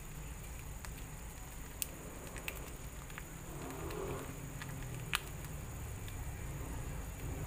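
Pan of sauce cooking on a gas burner, a steady low rumble, with a few sharp ticks, the loudest about five seconds in, and a short crinkle of a plastic sauce sachet being squeezed out.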